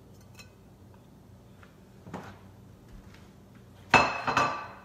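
Faint clicks and a small knock of fish pieces being laid in a pot, then about four seconds in a sudden loud clatter of a dish being set down on a kitchen counter, ringing briefly.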